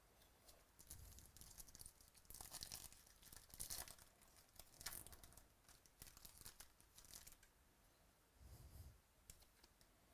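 Faint tearing and crinkling of trading-card pack wrappers being ripped open and handled, in short irregular bursts with small clicks between.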